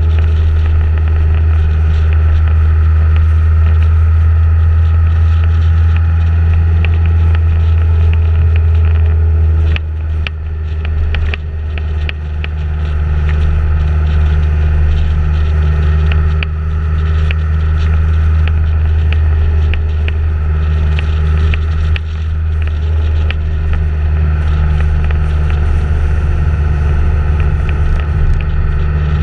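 Steady engine drone of a following vehicle, with wind and road noise over the microphone, dipping briefly about ten seconds in.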